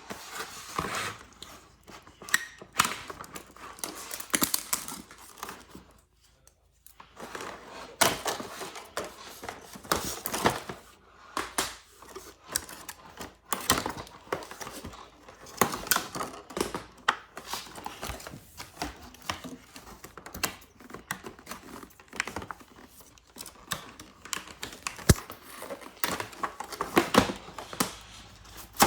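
A toy play set being freed from its cardboard-and-plastic packaging by hand: irregular clicks, taps and knocks with crinkling and rustling.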